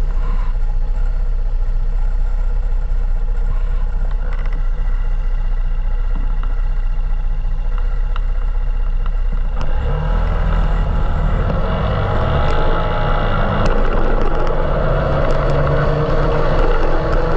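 A motor vehicle's engine running steadily. About ten seconds in it grows louder, and its pitch shifts and slides.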